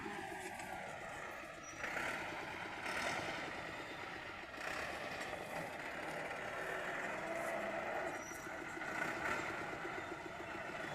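Massey Ferguson 365 tractor's diesel engine running steadily, swelling a little a few times.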